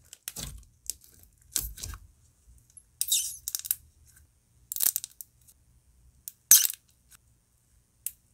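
Thick slime being squished and pressed by hand: about six separate bursts of crackling and popping, spaced a second or so apart.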